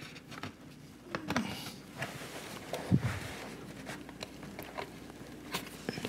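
Hands working a laptop's bottom cover loose: light clicks and scraping as the shell is lifted and pushed against its clips, with a soft knock about three seconds in.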